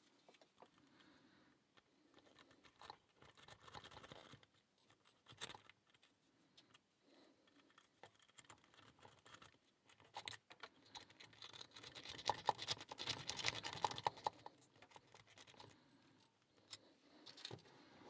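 Faint metallic scraping and clicking of a homemade paperclip rake being raked in a padlock's keyway under tension, in scattered spells that are busiest from about ten to fifteen seconds in.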